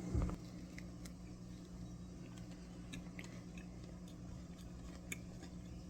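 Quiet chewing of a soft sourdough cinnamon roll: a few faint scattered mouth clicks over a low steady room hum.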